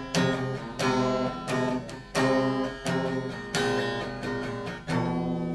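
Guitar strummed in steady chords, a strong stroke about every 0.7 s with each chord ringing on; the last chord, near the end, is left to ring.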